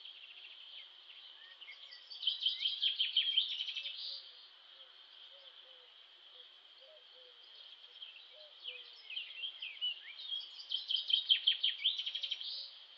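Songbird singing rapid twittering, trilling phrases in two spells, about two seconds in and again from about eight seconds to near the end, over a steady high insect buzz.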